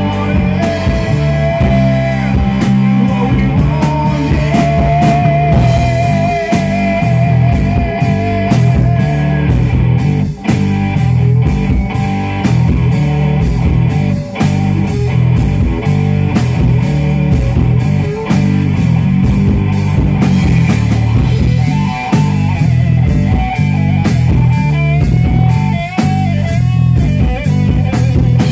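Live rock band playing loud: electric guitars, bass guitar and drum kit, with a held, wavering high note about five seconds in.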